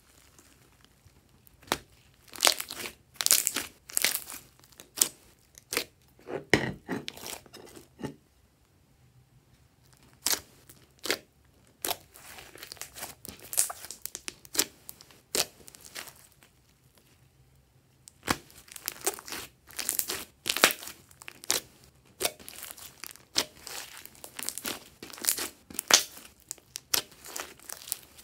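Hands squeezing, folding and pulling a large mass of glossy gold slime mixed with white fluffy slime, giving irregular sharp pops, clicks and crackles. The pops stop for a couple of seconds about a third of the way in and again past halfway.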